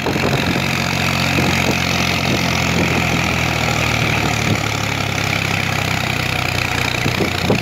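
Tractor engine running steadily as it pulls a heavily loaded trailer along the road.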